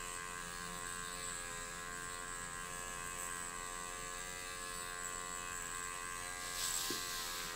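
Electric microneedling pen running steadily as its needle cartridge is worked over the skin: a constant motor hum with many overtones. A brief soft hiss comes near the end.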